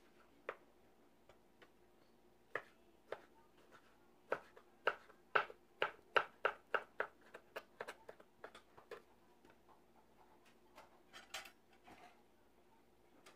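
Kitchen knife chopping boiled banana flower on a plastic cutting board: a few single knocks, then a quick run of chops, about four a second, from about four to nine seconds in, and a few softer ones near the end.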